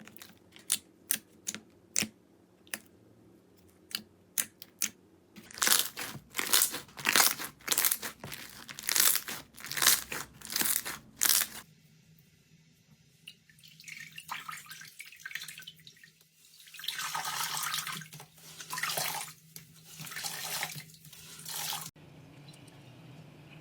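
Slime being handled: a run of sharp clicks and pops, then from about five seconds loud wet crackling strokes in quick succession, and from about twelve seconds softer, longer squishing passes.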